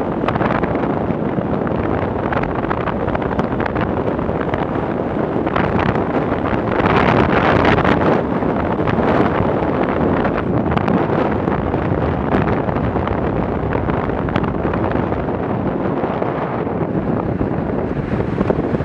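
Wind rushing over the microphone while riding a Yamaha YBR 125 motorcycle at road speed, with the bike's engine and road noise underneath, a louder gust about seven seconds in.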